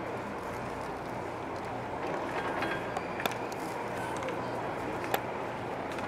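Steady outdoor noise with faint voices, broken by two sharp knocks about three and five seconds in.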